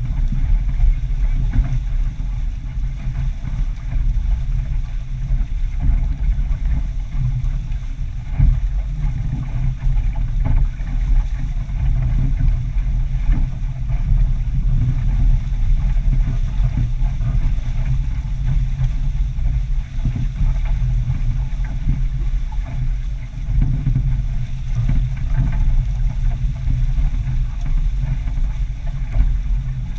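A sailboat moving under sail, heard as a steady, loud low rumble of wind buffeting the GoPro's microphone, mixed with water noise.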